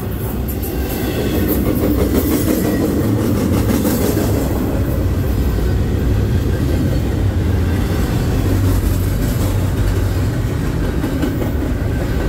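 Freight train rolling past, a steady loud rumble of wheels on the rails.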